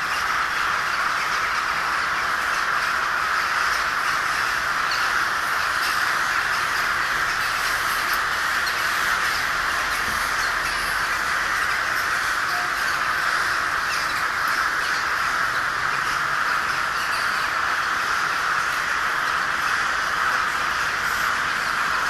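A huge flock of rooks and crows cawing all at once, a dense, unbroken chorus of overlapping calls, as the birds circle and settle in bare treetops.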